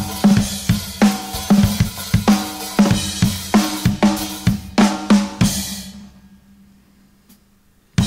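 Acoustic drum kit played alone, with no other instruments: kick, snare, toms and cymbals in a rock beat. About five and a half seconds in the playing stops and the last hits ring away into near silence, and the drums come back in right at the end.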